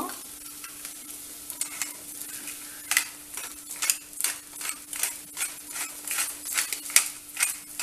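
Soya chunks sizzling in a nonstick frying pan. From about a second and a half in come sharp clicks and taps, two or three a second, as pepper powder is shaken in from a small glass jar.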